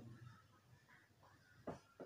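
Near silence, with faint rustling of thin electrical wires being twisted together by hand and one short click near the end.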